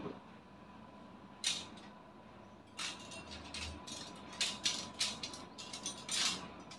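Iron rods and frame of a folding metal wall shelf clinking and rattling as it is handled, folded and its shelves taken off: short metallic clatters, a couple at first, then a quicker run of them over the last few seconds.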